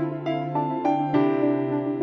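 Background music: a keyboard melody, a new note sounding every few tenths of a second over a steady low tone.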